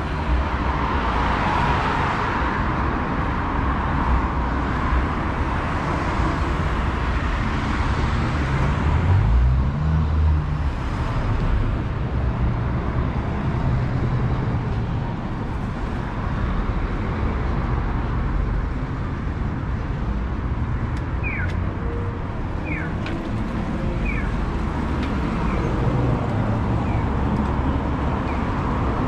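City street traffic: a steady wash of passing cars and trucks, with one vehicle speeding up about ten seconds in. Later a run of short high chirps repeats a little under twice a second over the traffic.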